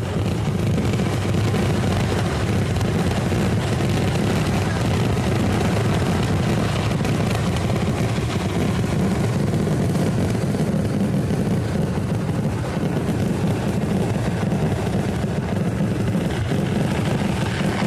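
Temple-festival fireworks barrage, so dense that the blasts merge into one continuous, steady rumble.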